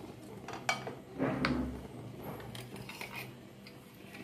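A few light clinks and knocks of kitchen utensils as a nonstick pan is handled on the gas stove and a steel plate is brought over, with the loudest knock about a second and a half in.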